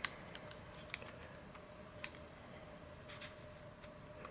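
Faint, sparse clicks and taps of hands working a motor mount into the nose of a carbon glider fuselage, about four in the space of a few seconds, over a faint steady hum.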